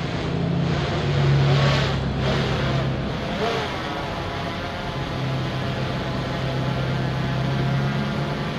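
An engine running with a steady low hum, swelling with a rush of noise about one to three seconds in.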